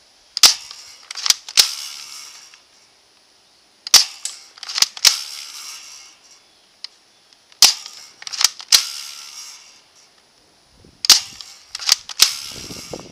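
Well M16A1 spring-powered airsoft rifle firing single shots, with sharp snaps in four groups of about three, roughly every three and a half seconds, as the gun is cocked and fired by hand each time.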